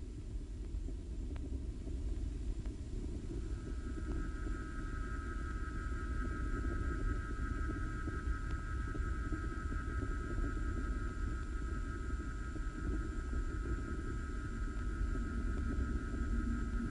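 A low, steady rumble, joined about three and a half seconds in by a steady high tone that holds to the end.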